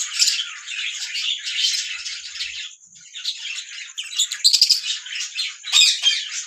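Small pet parrots (lovebirds or budgies) chirping and chattering in a dense run of overlapping high chirps and squawks, easing briefly about three seconds in, then louder again.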